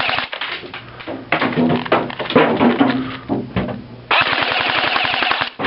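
G&G GR4 G26 airsoft electric rifle firing on full auto: several rapid bursts of shots, a brief one at the start, a longer one in the middle and a steady burst of about a second and a half near the end.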